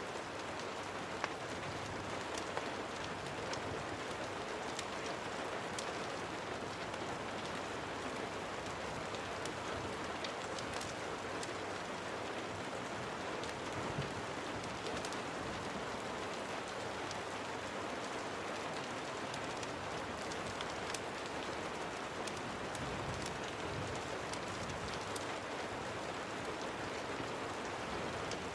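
Steady rain, a continuous hiss of falling water with many small sharp drop ticks scattered through it, one louder tick about a second in.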